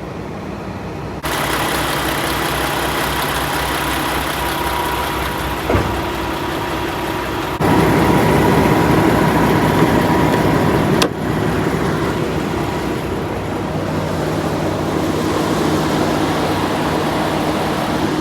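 Peterbilt 579 semi truck's diesel engine idling steadily after an alternator replacement. The sound gets louder about a second in, and again for a few seconds in the middle, which ends with a sharp knock.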